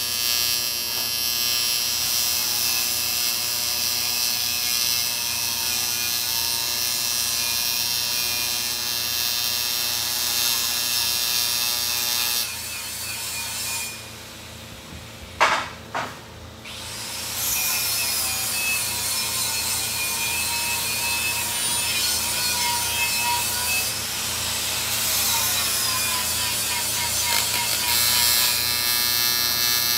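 A small motor or power tool running with a steady buzzing hum. About halfway through it drops away for a few seconds, with two sharp clicks close together, then runs again.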